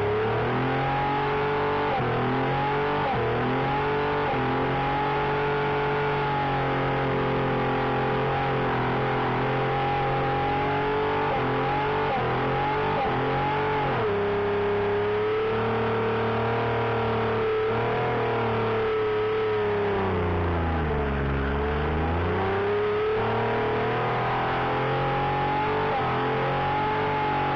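Holden Commodore's Buick V6 held at high revs during a burnout, its pitch staying nearly steady, then dropping and climbing back about twenty seconds in.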